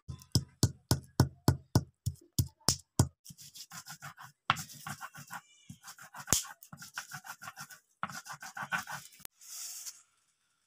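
Whole garam masala spices crushed with a hand stone on a flat grinding stone (sil): a quick run of sharp knocks, about four a second, then rough back-and-forth grinding strokes. A short hiss near the end.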